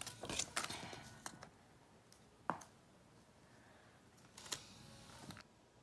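Sticky tape and paper being handled while taping down a paper squishy: faint crinkling rustles and small clicks, a single sharp crackle about halfway, and another short burst of crackling near the end.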